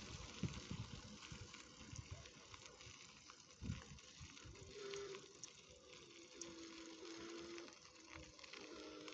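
Faint clicking of a bicycle's freewheel ratchet while coasting, with a faint steady hum coming in about halfway.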